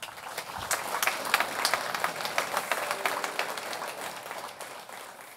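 Audience applauding, many hands clapping at once; it starts abruptly, is loudest in the first couple of seconds and gradually dies away near the end.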